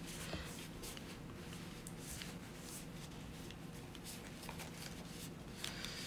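Faint rustling and light clicks of hands handling a small metal plasma lighter, with a steady low hum underneath.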